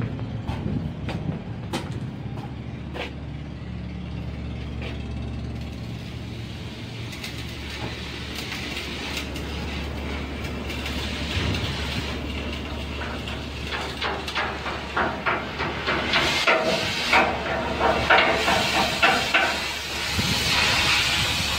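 Welding on a ship's steel deck railing: a hiss that builds from about a third of the way in, turning into dense sharp crackling over the last third. Under it the ship's engine rumbles steadily.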